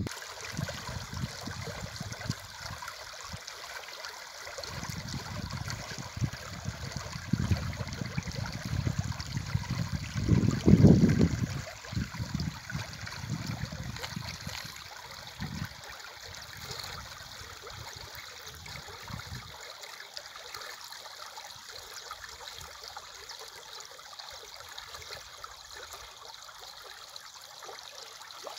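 River water flowing steadily, a continuous rushing hiss. Irregular low rumbling sounds over it, loudest about ten seconds in, and stops about twenty seconds in, leaving only the water.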